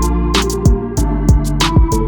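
Background music with a steady beat: a kick drum, crisp high percussion hits and sustained pitched instrument notes.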